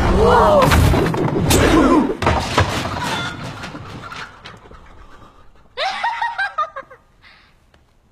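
Film soundtrack action effects: a loud run of sharp hits with a gliding shout-like sound, fading out by about four seconds. About six seconds in comes a short voiced exclamation.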